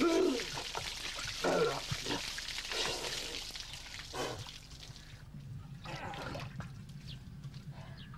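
Water poured from a clay pot splashing over a bather, with two short yelps of falling pitch from him near the start. The splashing dies away after about three seconds.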